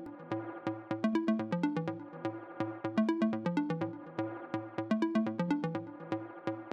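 Background electronic music with a steady beat and a repeating plucked melody over a bass line.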